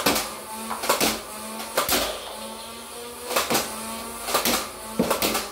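Nerf Ultra One motorized dart blaster firing foam darts: sharp shots about once a second, several in quick pairs, with a steady motor hum between them.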